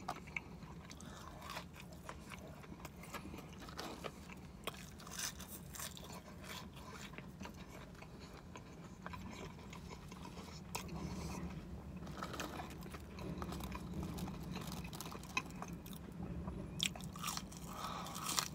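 Close-up chewing and crunching of crispy fried chicken and fries, with scattered sharp crunches and wet mouth sounds, over a steady low hum.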